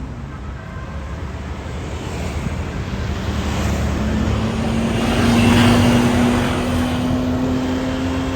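Tour bus driving past: road and engine noise swells to its loudest around the middle and eases off, with a steady low hum that comes in about halfway through and holds.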